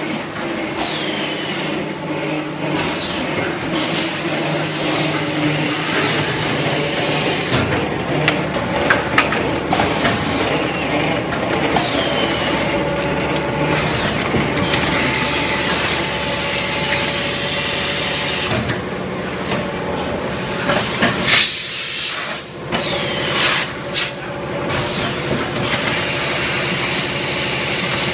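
Roof-tile production machinery running: a loud, steady mechanical din with hissing that cuts in and out every few seconds. There are a few sharp louder knocks toward the end.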